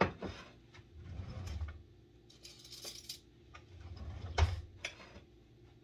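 Kitchen clatter of a utensil against a plate and dishes while vegetables are served: a sharp knock at the start, a louder one about four seconds in, a few lighter clicks, and a brief rustle in between.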